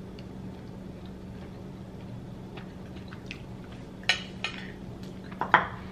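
A metal fork clinking and scraping against a ceramic bowl, twice in the second half, the second the louder and sharper, over a steady low hum.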